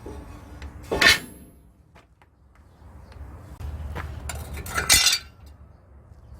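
Metal striking metal: two loud clinking clanks with a short ring, about a second in and again near five seconds, with a few light taps between.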